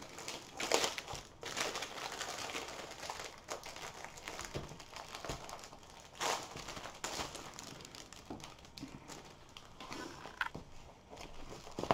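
Plastic packaging crinkling and rustling as a rolled diamond painting canvas is handled and unrolled, in irregular spurts with a few louder crackles.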